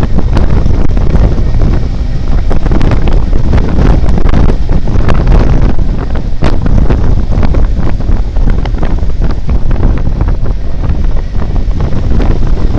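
Heavy wind buffeting the microphone of a moving motorcycle, a loud, constant low rumble, with scattered short knocks throughout.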